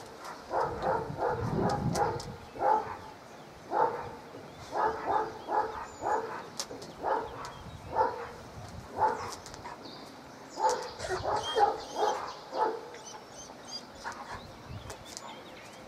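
Dog barking repeatedly in short, pitched barks and yelps, roughly one a second, sometimes two or three in quick succession.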